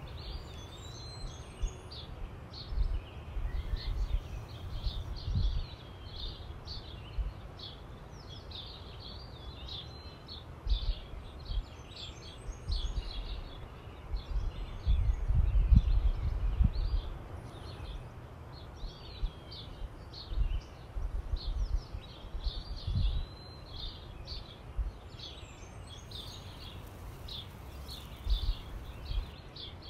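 Small songbirds chirping and twittering continuously in quick, overlapping calls. Irregular low rumbles on the microphone come and go, loudest about halfway through.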